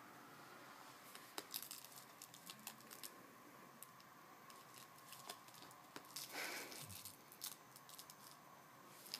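A cat wrestling a plush toy, biting it and clutching it in its claws: faint, scattered clicks and rustles of teeth and claws on the fabric. They come in two flurries, a second or two in and again just past the middle.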